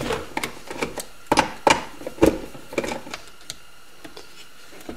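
Screwdriver work on a motorcycle instrument cluster: a string of sharp clicks and knocks of the metal tool and small parts against the hard plastic housing, thinning out to a few faint taps after about three seconds.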